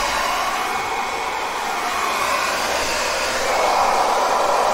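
Conair InfinitiPro hand-held hair dryer running with a brush attachment fitted, blowing a steady rush of air whose tone shifts slightly as it moves through the hair.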